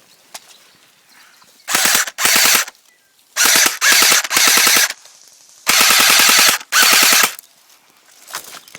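Airsoft gun firing on full auto in short bursts of rapid clicking shots, about seven bursts in three groups.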